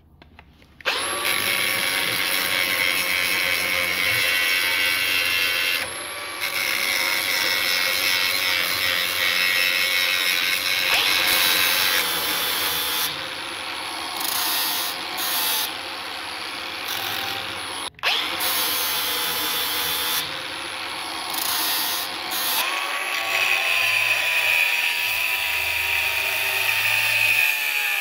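Angle grinder running and grinding into a rusty steel bar, a steady high motor whine with the rasp of the disc on metal. Its level dips a few times, it cuts out for an instant about two-thirds of the way through, and its whine slides lower in pitch near the end.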